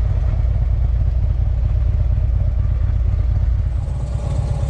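Harley-Davidson V-twin motorcycle engine running steadily while being ridden, a low continuous rumble.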